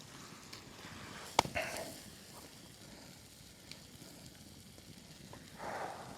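Food sizzling faintly in a pan over a camp stove. There is one sharp click about a second and a half in and a short soft sound near the end.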